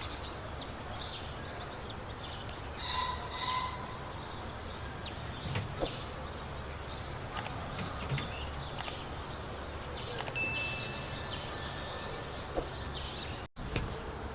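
Newly hatched chicks peeping, many short falling chirps one after another, over the steady low hum and thin high whine of an egg incubator.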